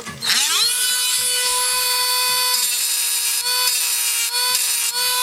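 Small high-speed rotary tool spinning up about a quarter second in, then running at a steady high pitch while grinding on a die-cast toy car's metal base.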